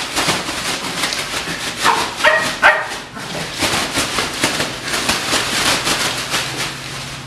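Shetland sheepdog puppy giving three short, high barks about two seconds in, over a steady crinkling of a plastic trash bag being shaken.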